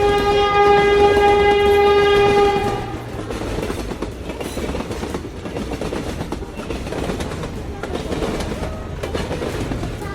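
A train horn blows one steady note for about three seconds, then the sound of the train running along the track carries on steadily.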